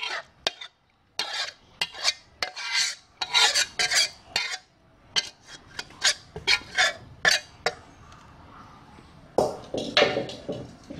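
Metal spatula scraping and clinking against a cooking pan while food is scooped out onto a plate: a run of quick, irregular scrapes, a short pause, then a denser scrape near the end.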